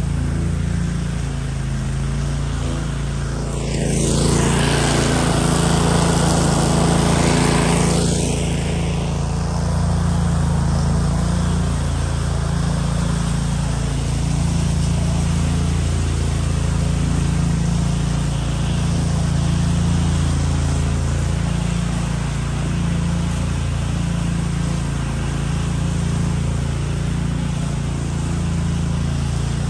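Small engine of a DR Field & Brush Mower running steadily at working speed, with a louder rushing noise from about four to eight seconds in.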